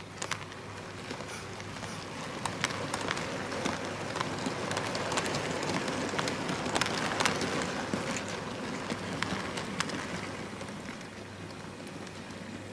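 Model train running past on the layout track: a steady rolling rumble of wheels on rail with irregular clicks, growing louder toward the middle and fading as the wagons go by, over a low steady hum.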